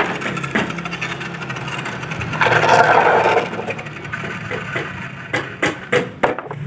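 Bamboo poles being handled on concrete: a rough scrape about two and a half seconds in, then a quick string of sharp knocks near the end as a cut length is thrown down.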